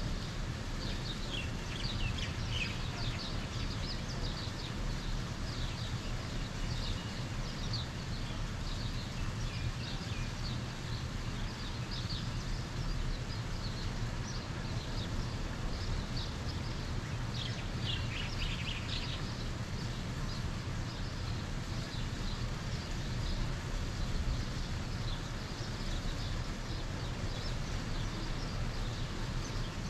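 Birds chirping: many short, high chirps scattered throughout, bunching into quick runs about two seconds in and again just past the middle, over a steady low rumble.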